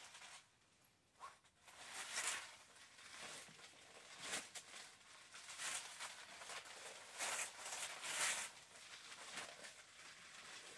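Clear PVC dress rustling and crinkling as it is handled and moved, in a series of irregular short swishes, the loudest about two, four and eight seconds in.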